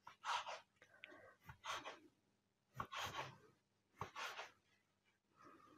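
Knife cutting a log of honey-cake dough into pieces on a wooden cutting board: five faint, short cuts about a second apart.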